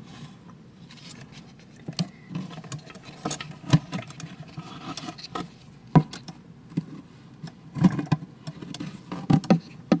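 Handling noise inside a Tiko3d printer: irregular clicks, knocks and scrapes as a camera is moved around the extruder carriage, with a few sharper knocks scattered through.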